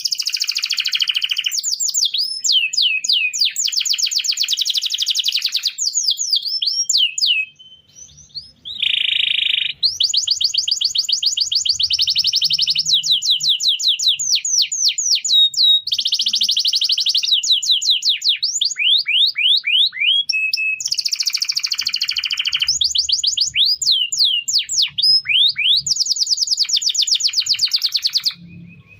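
Domestic canary singing a long, continuous song of rapid trills and sweeping whistled notes, broken by a short pause about eight seconds in.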